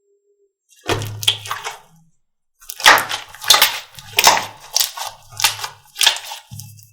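Slime being pressed and squeezed by hand in a run of repeated strokes, about two a second, starting about a second in.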